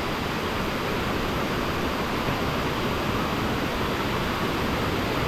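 Steady rush of water pouring over small waterfall cascades, an even hiss with no change in level.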